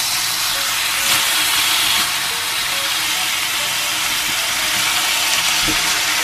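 Pork belly pieces sizzling steadily in a hot pan as they brown, their own fat rendering out.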